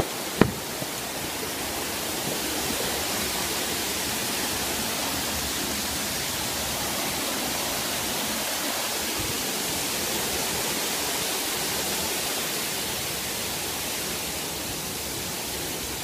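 Steady rush of a waterfall's falling water, an even noise with no change. A single sharp knock sounds about half a second in.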